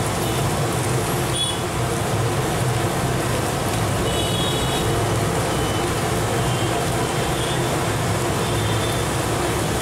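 Motorised wet grinder running steadily, its spinning pestle churning thick batter in a plastic bucket.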